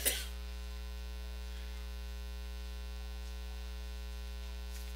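Steady electrical mains hum, one low unchanging drone with evenly stacked overtones, and nothing else heard.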